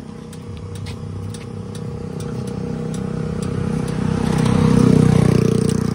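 A small motorcycle engine running, its sound swelling to a peak about five seconds in and then easing off.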